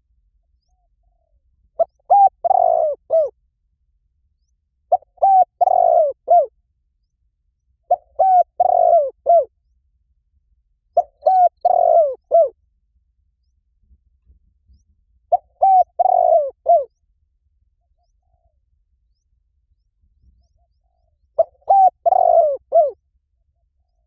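Spotted dove cooing: six multi-note coo phrases, each about a second and a half long, repeated roughly every three seconds, with a longer pause before the last.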